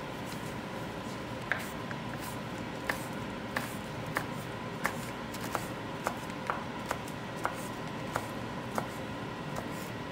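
A chef's knife slicing perilla leaves into thin strips on a wooden cutting board: about a dozen crisp knife strikes against the board at an uneven pace, roughly one to two a second, over a steady low hum.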